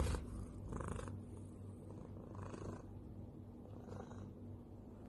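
A cat purring: a faint, steady low rumble that swells and eases about every second and a half with its breathing.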